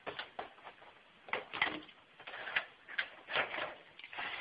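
Hornby plastic model railway wagon being handled and turned over in the hands: about a dozen irregular clicks, taps and short scrapes.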